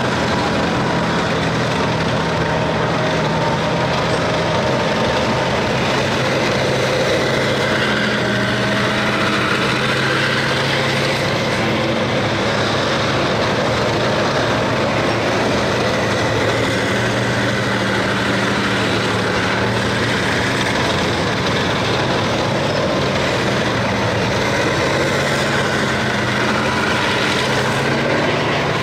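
Several tracked battle tanks driving and turning close by: a steady, heavy engine drone mixed with the clatter of their tracks on the road.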